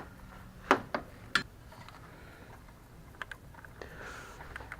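Small plastic clicks and taps of a turn signal bulb being worked into its socket by hand: two sharp clicks about a second in, then a few faint ticks near the end.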